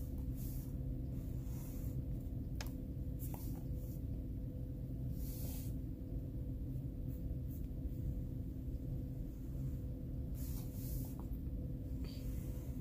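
Colored pencil shading on a coloring book page: brief, scratchy strokes come about half a dozen times. A steady low hum runs underneath.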